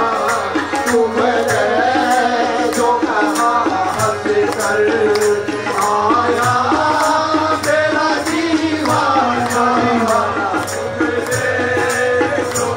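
Live qawwali music: harmoniums playing the melody with singing voices over a dholak drum keeping a steady beat of about two strokes a second.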